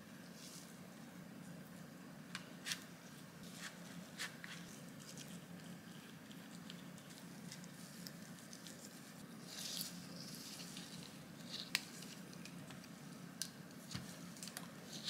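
Soft sticky squishes and light taps of a silicone pastry brush dabbing syrup onto baked cookies, scattered every second or two over a faint steady hum.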